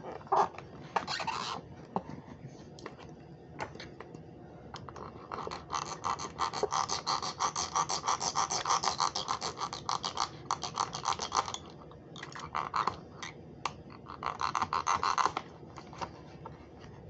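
A blade sawing and scraping at the plastic packaging that holds a small die-cast toy car, in rapid strokes. A long bout runs from about five seconds in to nearly twelve, and shorter bouts come near the end, with scattered clicks of handling in between.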